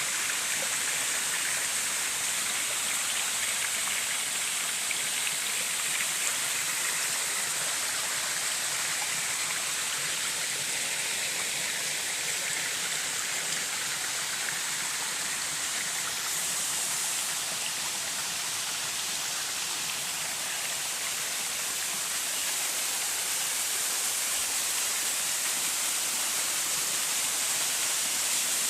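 Waterfall and stream water rushing steadily, an even hiss of falling water with no breaks.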